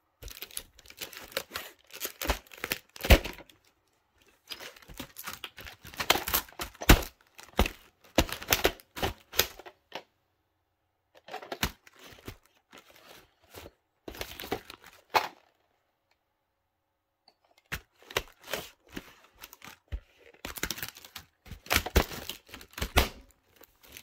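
Plastic clamshell VHS tape case being worked by hand: crackling plastic creaks and clicks in four bouts of a few seconds each, with short silences between and a few sharper snaps.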